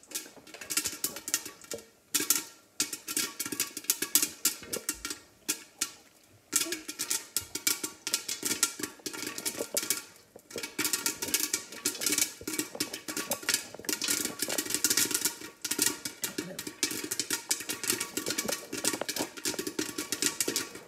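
Popcorn kernels popping fast in a covered stainless-steel skillet on a gas stove, in full popping: a dense, continuous stream of pops with brief lulls about 2, 6 and 10 seconds in.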